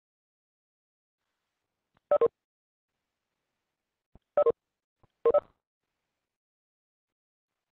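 Three short electronic notification beeps from the video-meeting app, each a quick double pulse, about two, four and a half, and five and a half seconds in, as participants leave and join the call.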